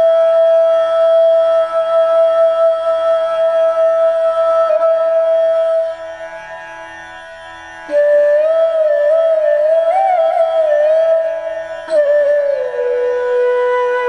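Meditative flute music: long held flute notes over a soft low drone, dipping quieter for a couple of seconds midway, then a wavering, ornamented phrase that settles onto a lower held note near the end.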